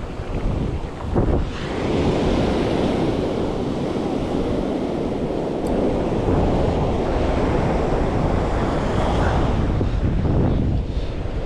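Wind buffeting the microphone over the steady wash of ocean surf breaking on the beach, swelling louder about a second and a half in.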